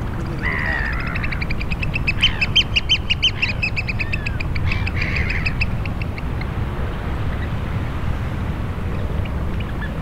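Eurasian oystercatchers calling: a first call, then a fast run of high piping notes that rises in loudness and fades out after about five seconds. A steady low rush of wind and shore water lies beneath.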